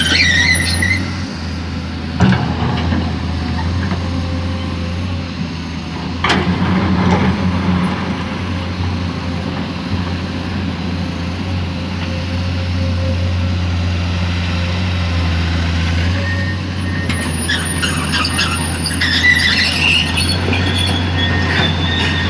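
Diesel engine of a Komatsu PC210 hydraulic excavator running steadily under work, with sharp metallic knocks about two and six seconds in and high squeals near the start and again near the end.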